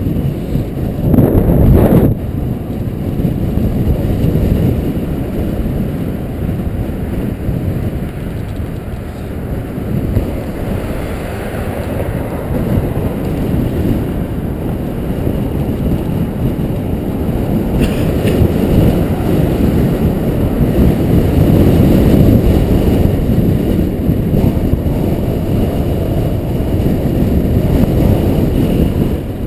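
Wind buffeting the microphone of a camera riding on a fast road-bike descent: a loud, low, rumbling rush that swells and eases, with a brief stronger gust about a second in.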